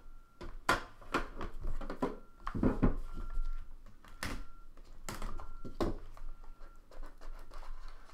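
A trading-card box being opened by hand: the lid lifted off and the small inner cardboard box pulled out and worked open, making an irregular run of scrapes, taps and knocks of cardboard against cardboard and the table.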